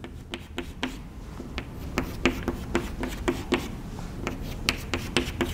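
Chalk tapping and scraping on a blackboard as short dashed lines are drawn: a series of sharp ticks, about two or three a second.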